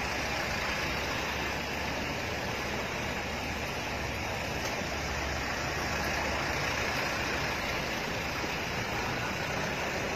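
Police vehicles, pickup trucks among them, driving slowly past one after another close by: a steady mix of engine and tyre noise.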